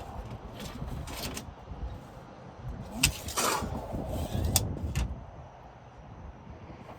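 Irregular scraping and knocking from objects being handled and shifted about: short scrapes about a second in, a louder scrape and knock around three seconds, more near five seconds, then quieter.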